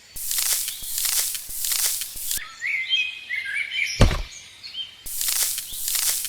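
Rhythmic scraping strokes, about three every two seconds. They pause for a little over two seconds, during which a bird chirps and there is a single heavy thump, then start again.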